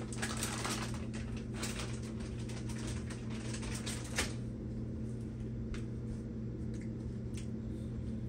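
Light clicking and crinkling of a plastic shredded-cheese bag being handled, denser in the first few seconds, with one sharper tick about four seconds in, over a steady low hum.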